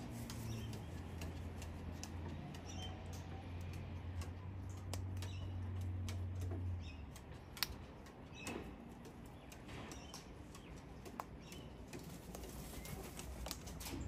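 Sulphur-crested cockatoos feeding on seed on a wooden railing: scattered sharp clicks and taps from beaks and claws, with a few faint short chirps. A low steady hum underneath stops about seven seconds in.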